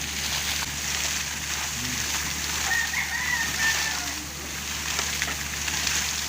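Steady rush of water and compressed air gushing out of a deep well being blown out with an air compressor. A rooster crows once, about three seconds in.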